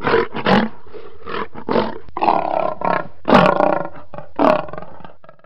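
Lion roaring, a run of repeated roars that fade out near the end.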